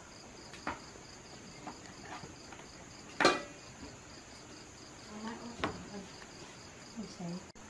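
Crickets chirping in a steady pulsing trill. Over it come scattered knocks of a kitchen knife cutting bamboo shoots on a wooden board, with one louder, ringing clink about three seconds in.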